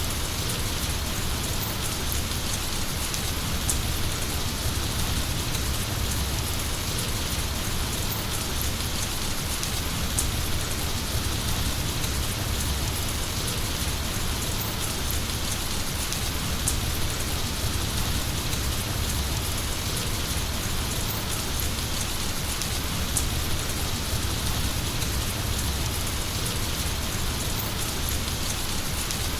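Heavy rain falling steadily: a dense, even hiss with scattered sharper drop ticks and a steady low rumble underneath.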